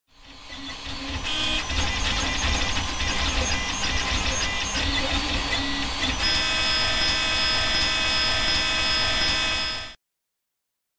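3D printer's stepper motors running, whining and buzzing in short changing runs for the first six seconds, then holding a steadier whine of several fixed tones. The sound fades in at the start and stops abruptly about ten seconds in.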